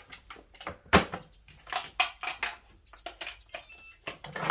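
Electric rice cooker being handled, a run of irregular plastic clicks and knocks. The loudest is a sharp clack about a second in as the lid shuts; lighter taps follow as its control-panel buttons are pressed, with faint short electronic beeps near the end.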